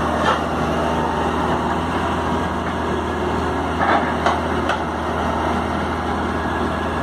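Hydraulic excavator's diesel engine running steadily under load while its bucket digs in wet mud, with a few short knocks about a third of a second in and three more between four and five seconds in.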